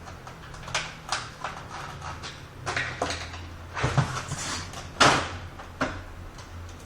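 Plastic parts of an HP Officejet 6500 printer being handled and unclipped during disassembly: a string of short clicks and knocks, the loudest about five seconds in, over a steady low hum.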